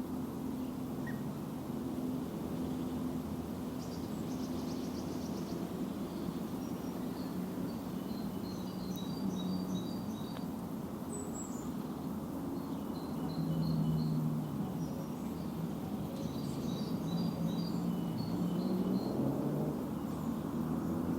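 Songbirds chirping in short, rapid phrases, several groups of quick high notes, over a steady low hum.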